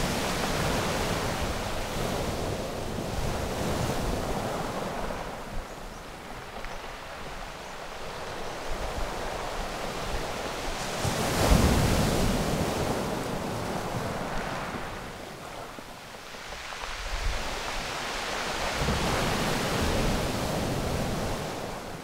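Small waves breaking and washing up over a pebble beach, the rush of surf swelling and fading in slow surges, loudest about eleven seconds in.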